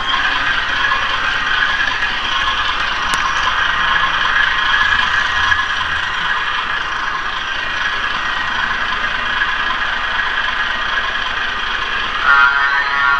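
HO-scale model train running: a steady mechanical rattle and whir of small wheels and gears on the track, heard close up. Near the end a steady pitched tone with several notes begins.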